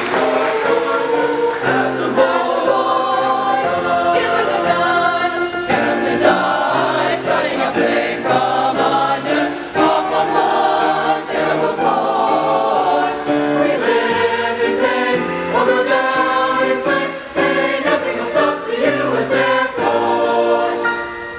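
High school mixed choir, boys' and girls' voices together, singing.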